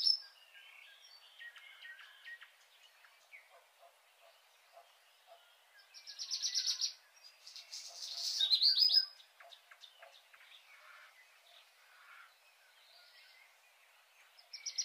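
A bird calling in short, high, rapid trills about a second long: one at the start, one about six seconds in, one with falling notes about eight seconds in, and one near the end, with fainter chirps in between.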